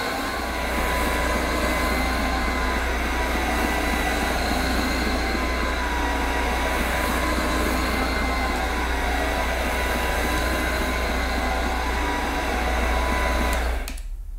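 AirCraft PowerGlide cordless hard floor cleaner running, its twin rotating microfibre pads spinning on a tiled floor: a steady motor whine over a low hum. It switches off just before the end and the sound drops away.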